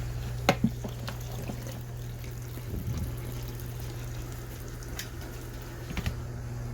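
Portable mini washing machine running: a steady motor hum with water moving in the tub and a few sharp knocks, two of them close together about half a second in.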